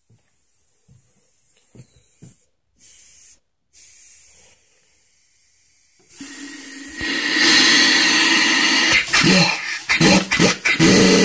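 Compressed air hissing into a steam-converted piston engine. The hiss starts about six seconds in, as the air line is coupled, and turns into a loud steady hiss. From about nine seconds, irregular puffs break through it as the engine's pulley is turned by hand.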